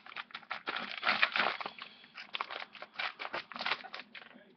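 A tourniquet's packaging bag crinkling and rustling in quick, irregular crackles as it is handled and cut open.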